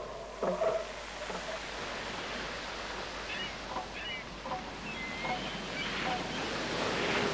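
Surf washing on the shore under steady wind noise, with a few faint short high calls in the middle.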